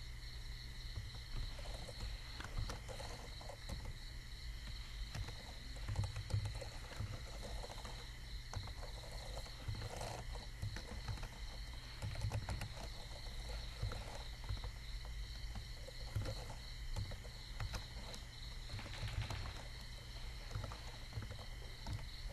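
Computer keyboard being typed on, irregular key clicks, over a steady low electrical hum and a thin high whine.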